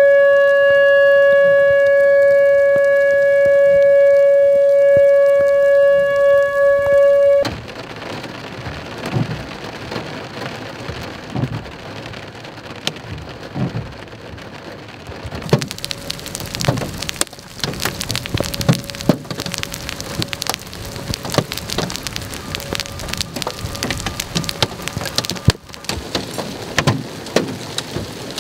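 Outdoor tornado warning siren holding one steady tone for about seven seconds, then cutting off abruptly. Large hail then falls, hailstones striking the ground and nearby surfaces in irregular sharp knocks over a rain hiss, growing denser about halfway through.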